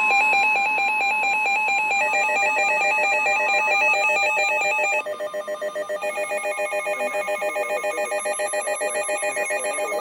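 Emergency alert tones: a rapid electronic warble between a high and a low pitch over a steady tone, with more tones joining about two seconds in. About halfway through it drops in level and turns into a fast, even pulsing of several layered tones, signalling a tornado warning.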